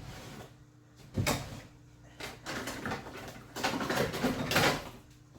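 Handling noises: a knock about a second in, then two longer stretches of rustling and scraping.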